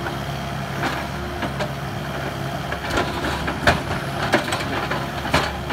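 Demolition machine's engine running steadily while concrete steps are broken up, with irregular knocks and crunches of concrete every second or so.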